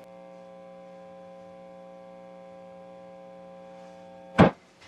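Steady electrical mains hum through the bass amplifier, with the bass's wiring cavity open. Near the end a loud sharp click sounds, and the hum stops.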